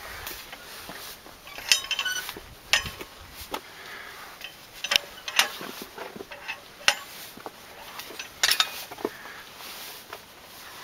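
Irregular metallic clinks and knocks of iron chains and iron rungs as they are gripped and bumped during a climb up a rock face. There are about a dozen sharp clinks spread unevenly, a few of them ringing briefly.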